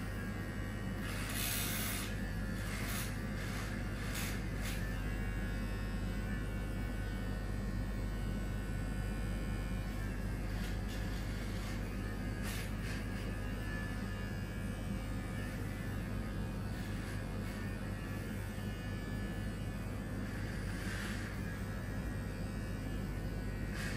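Electric hair clippers running with a steady hum. Brief scratchy strokes come now and then as the blade passes over the head.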